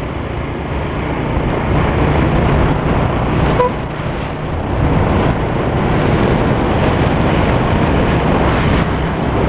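Motorcycle engine running at riding speed, with wind rushing over the microphone. A short beep sounds about three and a half seconds in.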